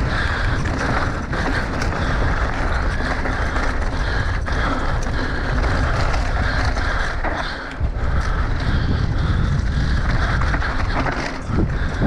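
Mountain bike ridden fast down a dry dirt trail: wind buffeting the microphone in a heavy low rumble, over the hiss of tyres on dirt, with frequent clicks and rattles from the bike. The rushing briefly drops twice, about halfway through and near the end.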